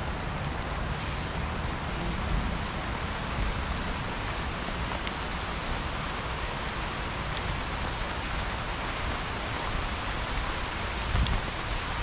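A steady, even hiss with a low rumble underneath, and a few faint ticks near the end.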